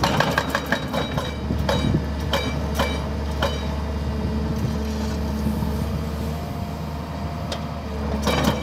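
Caterpillar wheeled excavator's diesel engine running steadily, with a string of irregular sharp metallic knocks as its attachment works the road surface. The knocks come thickly over the first few seconds, thin out, and pick up again near the end.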